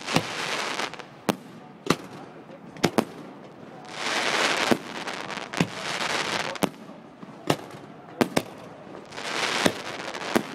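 Fireworks display: sharp bangs about once a second, a few in quick pairs, between longer swells of hissing crackle.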